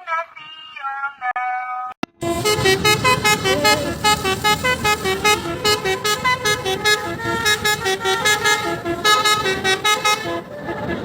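Indonesian bus 'basuri' telolet horn, a multi-tone musical air horn, playing a fast melody. It starts softer, then comes in loud about two seconds in with quick, rhythmic staccato notes.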